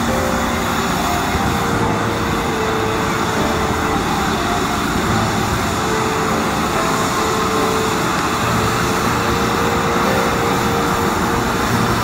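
Tube firework spraying a jet of sparks, a loud steady roaring rush that runs unbroken.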